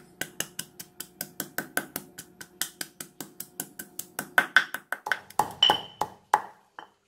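Granite pestle pounding garlic and cilantro roots into crushed spices in a granite mortar: quick, even strikes at about four a second, then a few louder, slower blows from about four seconds in, stopping shortly before the end. The pounding crushes the aromatics for a Thai curry paste.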